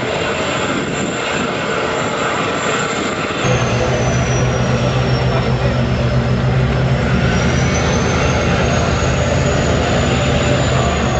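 Steady engine drone mixed with rushing noise. It changes abruptly about three and a half seconds in to a louder, steady low hum with a faint high whine that drifts in pitch.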